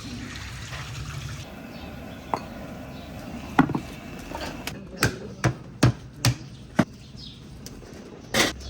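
A run of about seven sharp, irregular knocks from kitchen tools striking hard, typical of chopping or pot work at a street-food stall, after a steady low hum in the first second or so.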